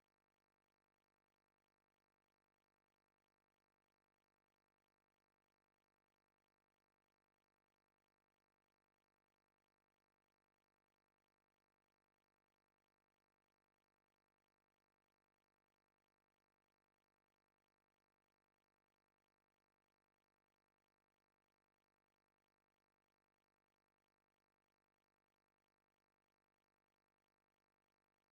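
Near silence: the track is essentially empty, with only a faint steady noise floor.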